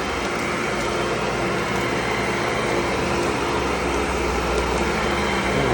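Tennant commercial vacuum cleaner running steadily: an even motor hum and airflow rush with a steady whine on top.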